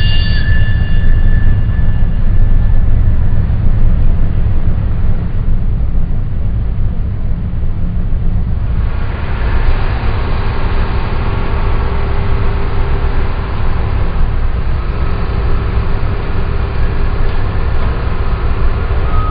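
Loud, steady low rumble of city traffic and heavy construction machinery. From about eight and a half seconds in, a brighter mix of machine noise with faint held tones joins it.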